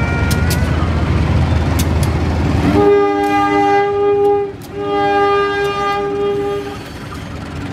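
CC 201 diesel-electric locomotive running past with a low engine rumble, then sounding its horn in two blasts of about two seconds each, separated by a brief break.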